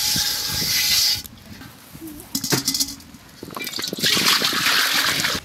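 Water poured from a metal vessel into an aluminium cooking pot, a splashing trickle that swells loud in the last second and a half. It follows about a second of rough scraping and rubbing with a few clicks between.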